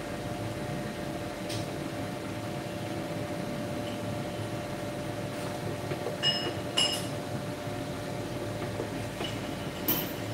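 Steady hum of workshop machinery, with light metal-on-metal taps that ring briefly: two about six seconds in and one near the end. The taps fit the chucked punch blank being tapped true while it is dialled in with a dial indicator.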